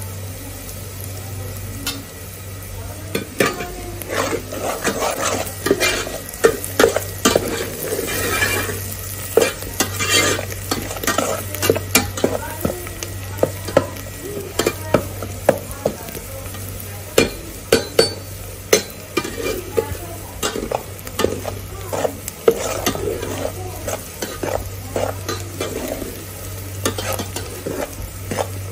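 A long metal spoon stirring shrimp and vegetables in oil in a large aluminium stockpot, clinking and scraping against the pot wall and base, over a steady sizzle. The clinks start a few seconds in and come irregularly, several a second at times, and a low steady hum runs beneath.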